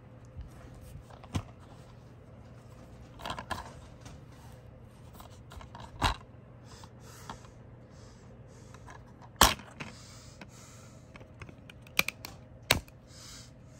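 Plastic DVD cases being handled: scattered clicks and clacks of the plastic, the loudest a little past the middle, with soft rubbing and sliding in between and two quick clacks near the end.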